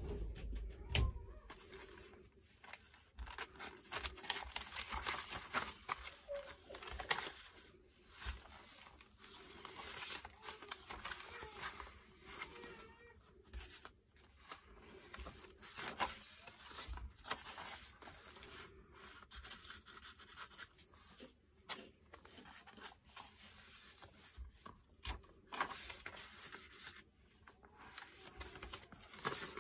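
Coffee-dyed paper pages of a handmade journal being turned and handled: irregular rustling, rubbing and soft flaps of paper, with small taps in between.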